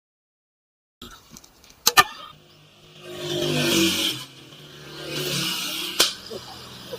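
Motor vehicle engine passing on the road, swelling and fading twice, with sharp clicks about two seconds in and near six seconds. The first second is silent.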